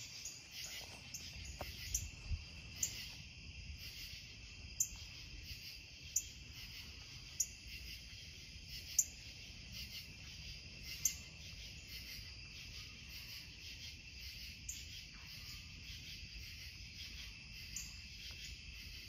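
Dusk chorus of crickets and other insects, a steady high-pitched trilling, with a short falling chirp that recurs every second or two.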